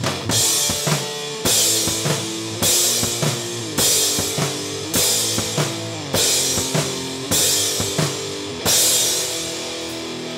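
Instrumental rock music: a full drum kit with a cymbal crash about every second over sustained guitar chords. Near the end the drums drop out, leaving the guitar ringing on.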